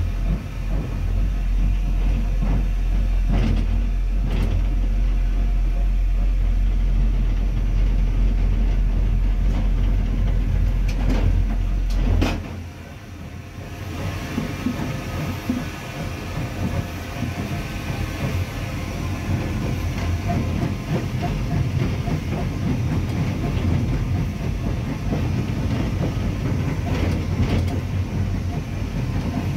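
Andrew Barclay 0-6-0 saddle tank steam locomotive on the move, heard from its cab: a heavy low rumble with a few sharp clicks from the rail joints. About twelve seconds in, the deep rumble suddenly drops away, leaving a rougher, even running clatter of wheels on track.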